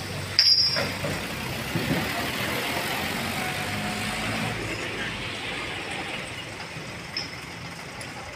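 Diesel engine of an ACE Hydra pick-and-carry crane running steadily at low speed. About half a second in there is a sharp, loud clank that rings briefly, and a smaller clank near the end.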